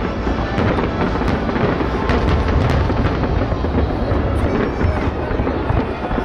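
Dense New Year's fireworks: a continuous low rumble of booming shells, overlaid by many sharp bangs and crackles.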